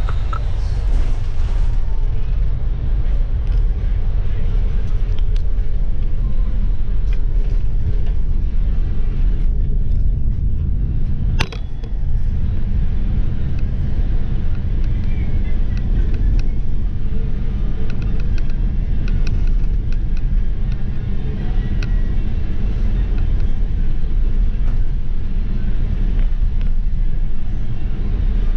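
RapidKL city bus on the move: a steady low rumble of engine and road noise. There is one sharp knock partway through.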